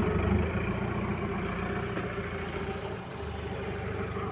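Car engine running steadily with a low, even hum that dips briefly about three seconds in.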